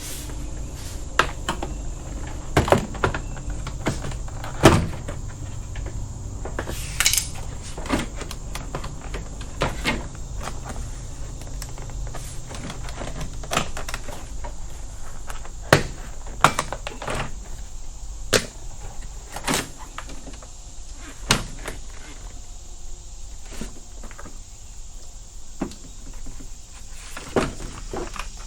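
Scattered clicks, taps and knocks of hand tools and metal parts being handled while working on a car door, over a steady low hum.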